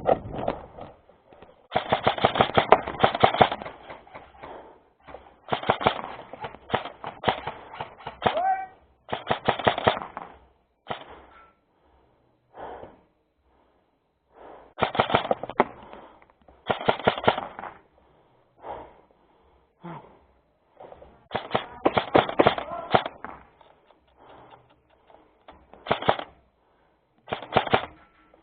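Airsoft guns firing in repeated bursts of rapid full-auto fire, some bursts a second or two long and others short, with brief pauses between them.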